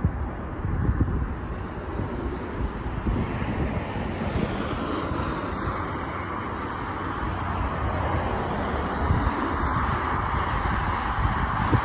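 Distant, steady roar of a double-headed P36 steam train approaching, growing louder in the second half, with wind gusting on the microphone.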